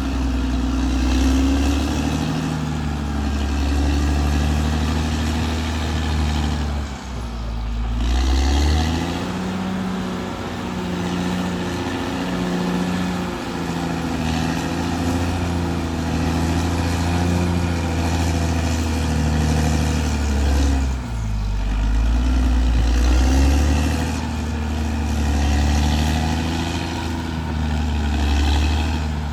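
Caterpillar D6R XL bulldozer's diesel engine running under load. The engine note dips and picks up again twice, about a quarter of the way in and again about two-thirds of the way through.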